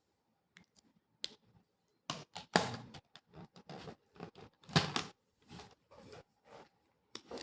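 Drawing strokes scratching on paper: a series of short, irregular strokes, sparse at first and then quicker, with two louder strokes about two and a half and five seconds in.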